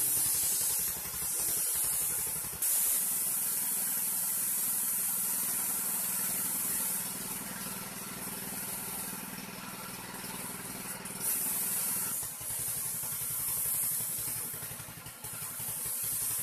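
Compressed-air paint spray gun hissing in long bursts as it sprays paint onto scooter body panels, over a steady low motor hum.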